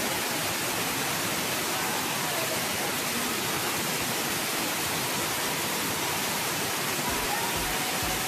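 Steady rushing hiss of water pouring from a mushroom-shaped pool fountain into the pool, with faint distant voices under it.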